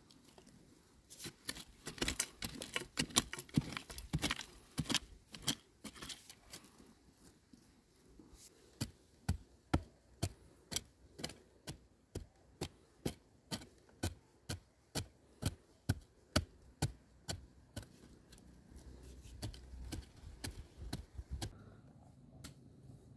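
A hand tool striking again and again in sharp chopping strokes. There is a fast, dense flurry in the first few seconds, then a steady run of about two strokes a second.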